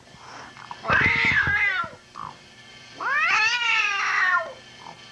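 Long-haired cat meowing loudly twice, a drawn-out call about a second in and a longer one at about three seconds: the complaint of an unhappy, angry cat.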